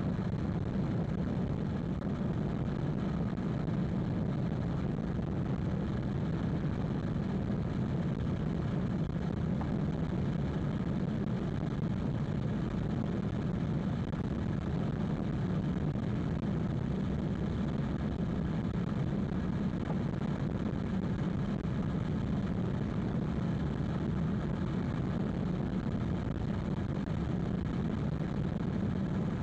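Steady tyre and road noise heard inside the cabin of a 2020 Hyundai Ioniq Electric cruising at expressway speed, a low, even rumble with no changes.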